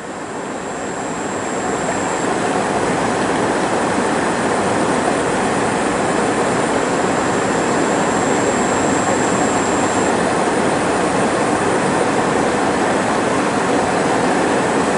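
Steady rushing of river water, swelling up over the first couple of seconds and then holding steady.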